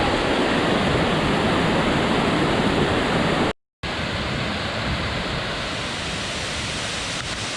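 Waterfall rushing: a steady, dense noise of falling water. It cuts out for a moment about three and a half seconds in, then comes back somewhat quieter.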